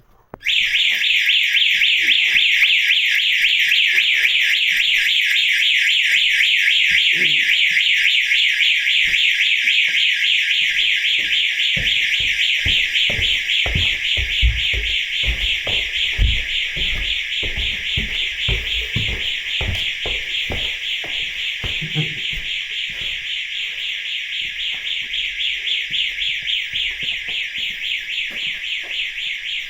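Building intruder alarm sounder going off, set off by the building's sensors. It is a loud, fast-warbling high electronic tone that starts suddenly about half a second in and keeps sounding. A run of low thumps comes through the middle.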